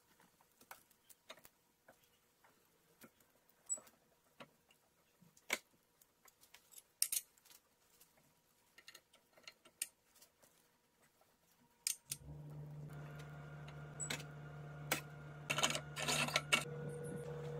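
Kitchen tongs clicking and light taps and clinks as chicken wings are set down on a glass serving platter, scattered one at a time. About twelve seconds in, a steady low hum starts under a few more clinks.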